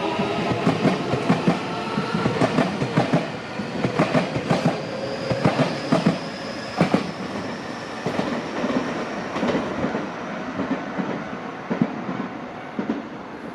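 Electric commuter train pulling away on the adjacent track: its wheels click over the rail joints in quick, irregular beats that thin out as it draws off, with a thin motor whine rising in pitch as it accelerates.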